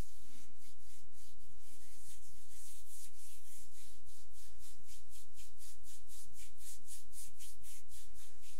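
Palm rubbing back and forth over bare skin of the upper back and shoulder during a massage rub-down, a rhythmic swishing of about three to four strokes a second.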